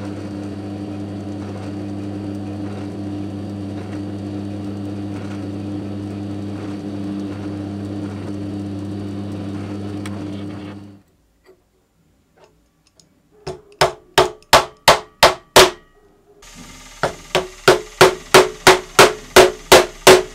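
A drill runs steadily with a small bit cutting into a steel counterweight collar on a shaft, then stops. After a short pause, a plastic-faced mallet taps the steel shaft in two quick runs of light knocks, about eight and then about a dozen, roughly four a second.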